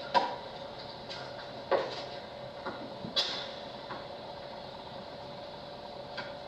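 Tennis ball hits and bounces on a hard court: about five sharp knocks in the first three seconds and a faint one near the end. They are played back through a television speaker over a steady hum.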